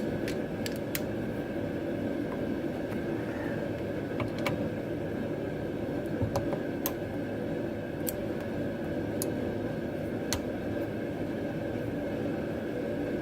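Scattered sharp clicks and clinks of a 13 mm deep socket on extensions being fitted and turned to snug down a brass hose fitting, over a steady background hum.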